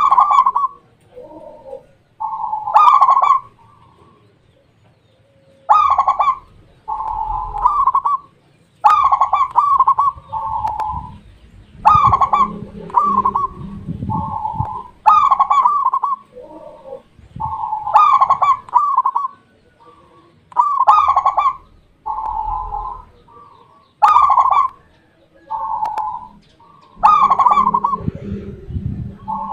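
Zebra dove (perkutut) cooing, repeating its phrase of a few rolling notes about every three seconds, with softer notes in between.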